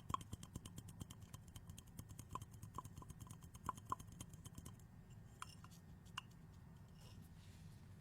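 Water in a bong bubbling as smoke is drawn through it: a fast run of small pops, about ten a second, that thins out to a few scattered pops about five seconds in.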